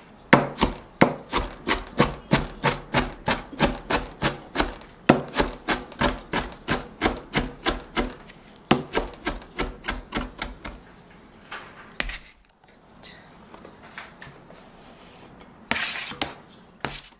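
Chef's knife chopping kimchi on a plastic cutting board: steady chops, about three or four a second, for the first ten seconds or so, then quieter. Near the end, the knife scrapes the chopped kimchi off the tilted board into a glass bowl.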